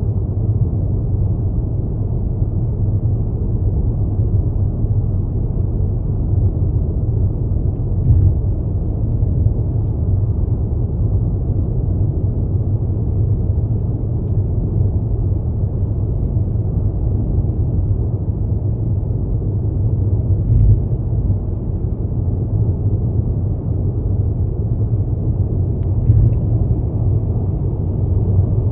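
Steady low road rumble of a car driving along a city street: engine and tyre noise, with a few faint brief knocks now and then.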